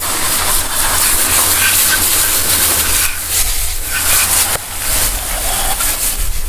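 Garden hose spray nozzle jetting water onto a muddy AR-15 rifle, rinsing the mud off: a steady hiss of spray that eases briefly twice.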